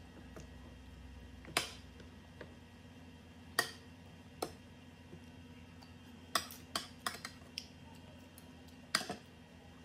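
Metal spoon and fork clinking and scraping against ceramic plates during a meal: about nine sharp clicks scattered through, with a quick run of them a little past the middle.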